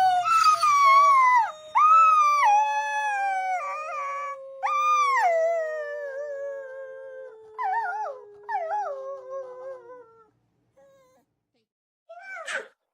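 A dog howling in a series of long calls that slide down in pitch, the later ones wavering, over a lower held note that sinks slowly beneath them. The howls die away about ten seconds in, and a few short yelps or sniffs follow near the end.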